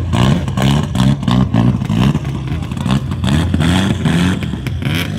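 Rally car's engine running close by and being revved repeatedly, its pitch rising over and over, with sharp crackles.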